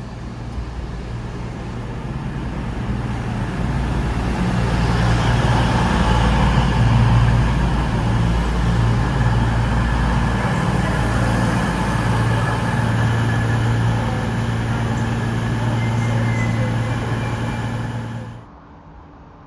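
Diesel train engine running with a steady low hum, growing louder over the first several seconds, then holding steady until it cuts off suddenly near the end.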